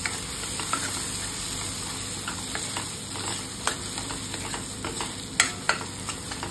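Thick green masala paste of ground peanuts, green chillies and garlic sizzling in hot oil in a steel kadhai, being fried until the oil separates. A steel spoon stirring it scrapes and clicks against the pan now and then, with one sharper clack about five seconds in.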